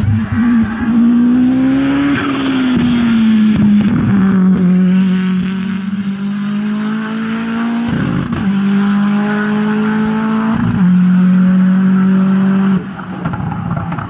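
Lancia Delta Integrale HF hill-climb car under hard acceleration, its turbocharged four-cylinder engine running at high revs. The steady note breaks briefly for gear changes about eight and eleven seconds in, then drops away near the end.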